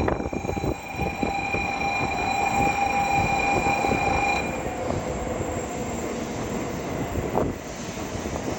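Shinkansen bullet train pulling into the platform and slowing, with a rumble and a steady high whine that cuts off about four seconds in.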